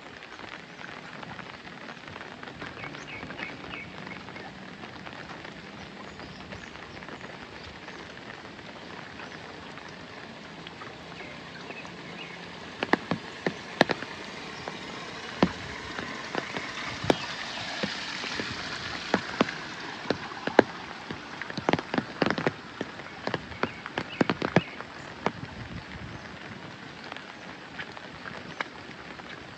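Steady rain hiss with sharp taps of individual drops, the taps coming thick and fast for a stretch in the middle.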